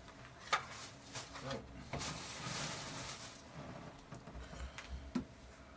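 Foil booster pack wrapper being handled and torn open: a few light crinkles and clicks, with a longer tearing rustle about two seconds in.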